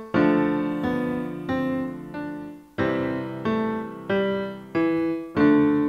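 GarageBand's Classical Grand virtual piano playing back a melody over D minor and C major chords. A new note or chord is struck about every two-thirds of a second, and each rings and fades.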